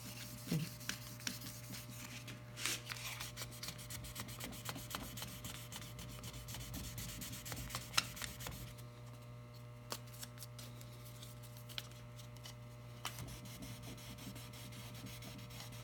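Hand wet sanding of a varnished wooden model hull with 3000-grit wet paper on a soapy, wet surface: soft rubbing strokes with small scattered ticks and one sharper click about halfway through. A steady electrical hum runs underneath.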